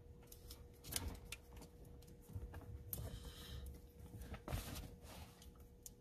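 Faint handling of tape being wrapped around a car wiring-harness connector: scattered small clicks and crackles, with a couple of longer rustling stretches, over a thin steady hum.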